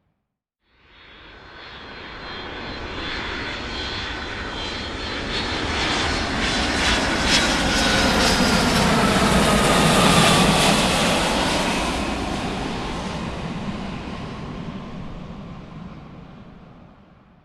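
Large aircraft flying past: its engine sound swells in about a second in, peaks around ten seconds in, then fades away near the end, with a whine that falls in pitch as it passes.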